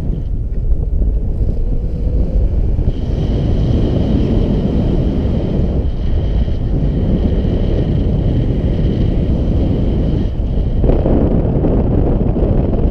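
Airflow buffeting the GoPro Hero 4 Black's microphone during paraglider flight: a steady low wind rumble that spreads a little higher near the end.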